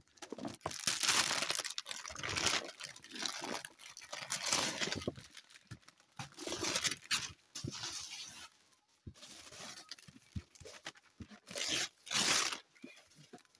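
Wrapping paper being torn and crumpled as a present is unwrapped, in several rips and crinkles with short pauses between them.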